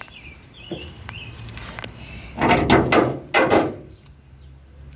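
Loose car trunk lid being flipped over on asphalt: about two and a half seconds in, three loud scraping clunks over a little more than a second as the panel drags and lands.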